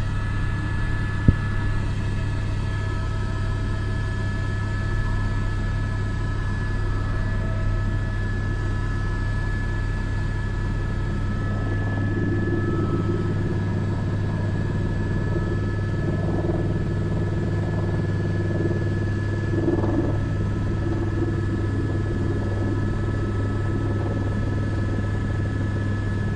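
Airbus AS350 B3 (H125) helicopter's turbine and rotor running steadily, heard from the cockpit: a constant low drone with a steady high whine over it. One sharp click about a second in.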